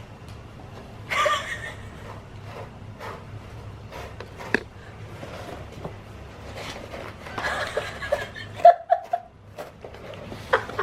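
A woman laughing quietly and snickering, with scattered soft clicks and rustles. A louder burst of laughter comes about a second in and again around eight seconds in.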